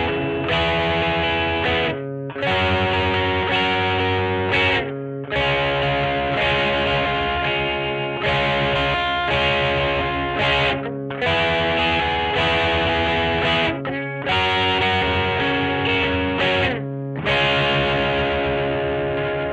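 Greco EG-550 electric guitar played through a Peavey Vypyr VIP 2 modelling amp with a distorted patch: sustained, ringing chords, cut off briefly every two to three seconds between phrases.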